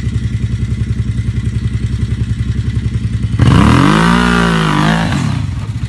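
An engine idling with a steady rapid pulse, revved once about three and a half seconds in, its pitch rising and falling back over about a second and a half.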